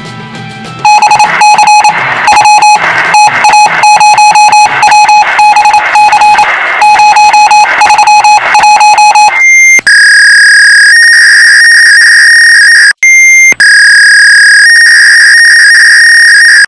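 Fax machine transmission noises: rapid on-off beeping for about eight seconds, then a brief higher beep and a long, steady, loud electronic screech, broken once by a short gap and another higher beep.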